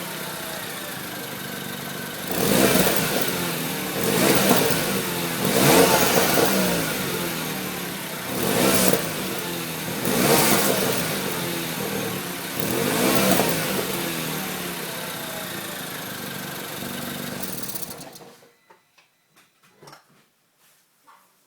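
R56 Mini Cooper S 1.6-litre turbocharged four-cylinder engine idling and being revved briefly about six times. The engine sound cuts off abruptly near the end, leaving a few faint clicks. The odd noise the owner is showing is somewhere in this running sound.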